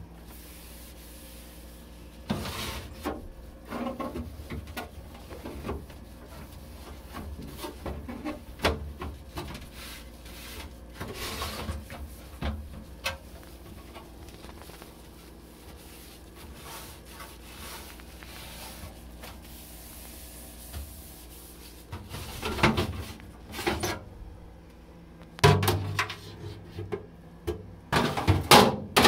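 Cleaning and handling things in a refrigerator: irregular rubbing and scraping with knocks and light clatter as items and shelves are moved, louder near the end, over a steady low hum.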